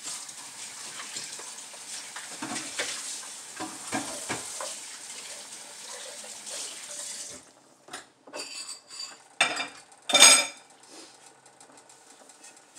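Kitchen clatter of dishes and cutlery over a steady hiss that stops about seven seconds in, then a few sharp metal clinks, the loudest about ten seconds in.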